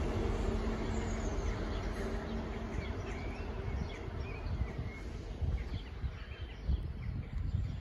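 A Class 158 diesel multiple unit pulling away, its steady engine hum fading over the first few seconds. Birds chirp through the middle, over a low rumble.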